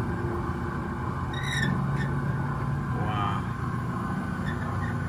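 Gas grill running with its rotisserie spit turning: a steady low hum. Two brief higher chirps come over it, about one and a half and three seconds in.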